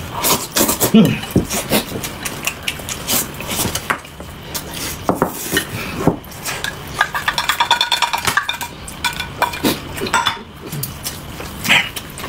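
Utensils clinking and scraping against bowls and dishes during a meal, in many short sharp clicks, with a quick run of rapid ticks about seven seconds in.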